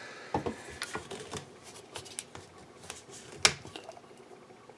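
Plastic screw cap being twisted off a bottle: scattered clicks and rubbing of hands on plastic, with one sharp click about three and a half seconds in.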